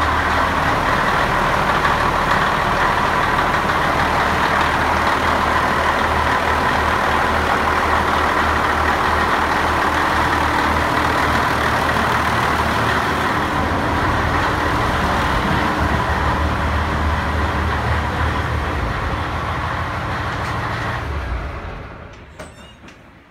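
A boat's inboard engine idling steadily, heard loud and close in the engine room; near the end the sound drops away sharply.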